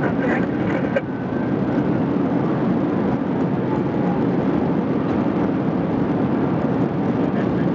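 Steady rushing road, wind and engine noise from a police patrol car driving at high speed, about 131 mph.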